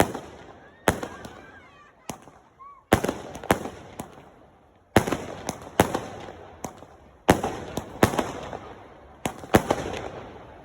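Firework display: a rapid series of loud aerial shell bursts, about a dozen sharp bangs, each trailing off in crackle and echo, coming in clusters roughly every second.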